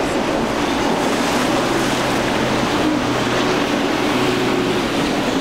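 Outboard motor of a small skiff running at speed, its engine note wavering a little in pitch, over a steady rush of surf and spray.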